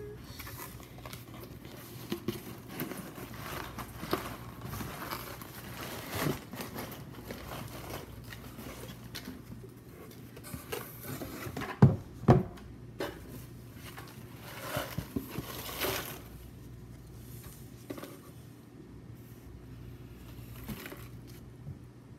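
Hands rustling through crinkle-cut paper shred packing and handling a cardboard shipping box, with scattered rustles and light clicks. Two sharp knocks come a little past halfway as the contents are handled.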